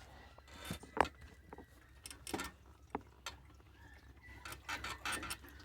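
Faint, irregular clicks and creaks from the rear suspension of a switched-off Honda CG motorcycle as it is moved. This is a new noise that the owner traces to the swingarm and blames on jumps and potholes.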